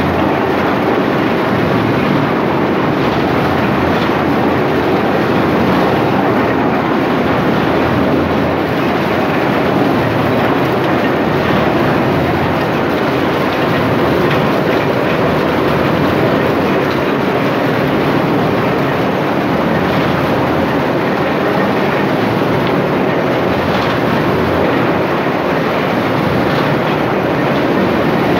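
Areca nut processing machine running steadily and loudly, with faint scattered ticks over a continuous mechanical din.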